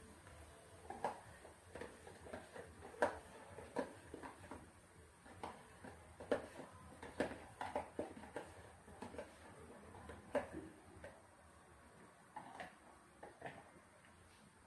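Faint, irregular clicks and light knocks of kitchen items being handled over a metal pan on the stove, about one or two a second, thinning out after about ten seconds.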